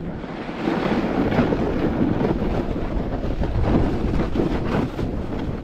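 Snowboard sliding and scraping over snow at speed, with wind rushing on the microphone; the scraping grows louder about a second in.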